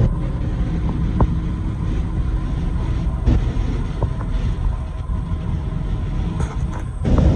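Steady low rumble of engine and road noise inside the cabin of a Ripp-supercharged V6 Dodge Challenger cruising, with a few light clicks.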